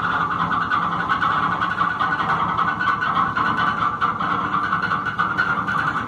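Narrowboat's diesel engine running steadily, heard close from aboard the boat.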